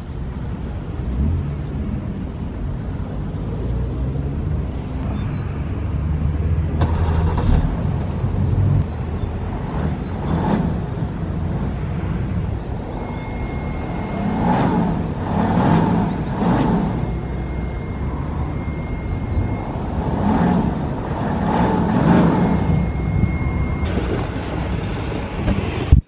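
BMW X5 xDrive40i's turbocharged 3.0-litre inline-six idling through its exhaust and being revved in short blips about seven times, each rising and falling in pitch, most of them in the second half. A thin high steady tone sounds on and off through the middle.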